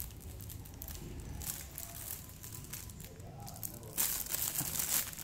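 Thin clear plastic bag crinkling as it is handled and pulled open: faint rustles at first, then much louder crinkling from about four seconds in.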